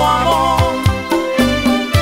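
Live grupero band playing an instrumental passage: an electronic keyboard carries a wavering lead melody over a steady bass line and a regular beat.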